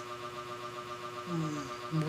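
A pause filled by a steady background hum, with a short, falling hesitant 'mmm' from a woman's voice about a second and a half in.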